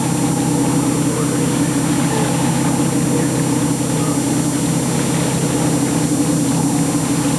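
Boat engine running steadily, a low even drone.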